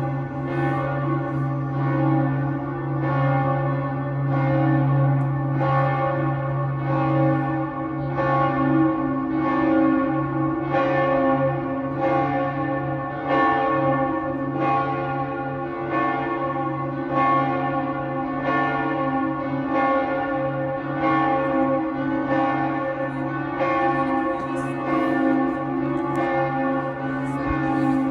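Church bells ringing, with a fresh strike about every second and a quarter and each stroke's ringing overlapping the next. A deep bell hum underneath fades about a third of the way in.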